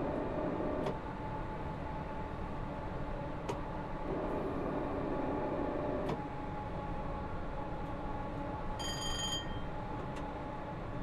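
Class 314 electric multiple unit running steadily, a continuous rumble with a steady hum and a few sharp clicks. A short high-pitched beep sounds about nine seconds in.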